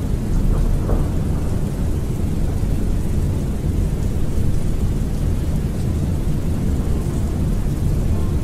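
Thunderstorm ambience: steady rain over a continuous low rumble of thunder.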